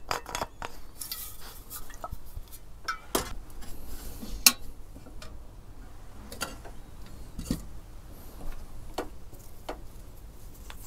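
Irregular clinks and knocks of metal cookware and cutlery being handled while a coffee is made, the sharpest about four and a half seconds in.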